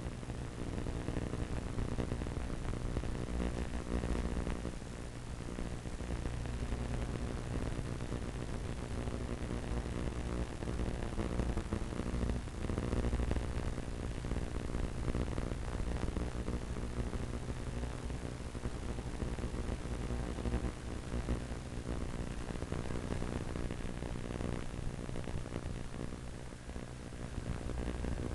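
A Super Cub's brushless electric motor and propeller droning steadily in flight, under a constant hiss of static from the video link's audio.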